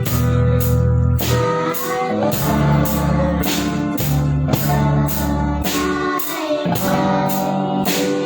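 A band playing a song: a drum kit keeping a steady beat under bass notes, with a singing voice carrying the melody.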